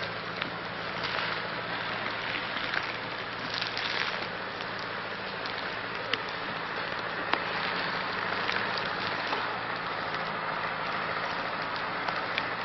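Brush and conifer branches rustling with scattered sharp twig snaps as someone pushes through the slash of a felled larch, over a steady low hum from a logging tractor's engine running in the background.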